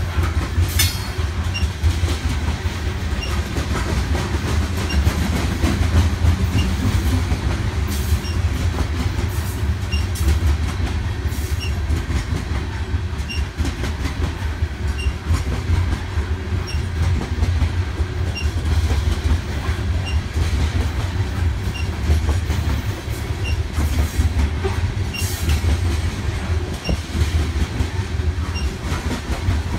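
Coal hopper cars of a passing BNSF freight train rolling by: a steady low rumble with the wheels clicking over rail joints, and faint short squeaks recurring about every second and a half.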